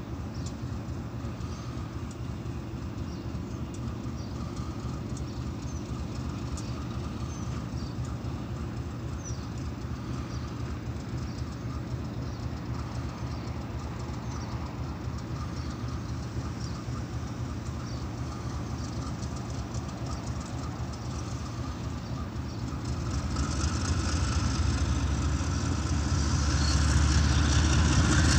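Diesel-electric locomotive engine idling with a steady low drone. Near the end the engine sound grows clearly louder.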